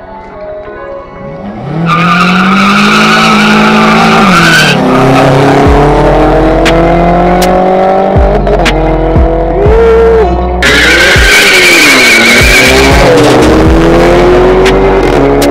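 Two cars launching from a drag-race start and accelerating hard, their engines climbing in pitch and dropping back at each gear change, with a high tyre squeal twice. Background music plays with a steady beat.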